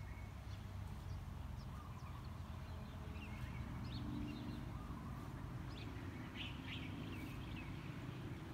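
Birds chirping in short scattered calls over a steady low outdoor rumble.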